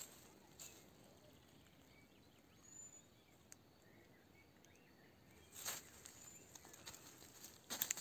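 Quiet forest ambience with a few faint high bird chirps, then footsteps crunching through dry leaf litter twice near the end.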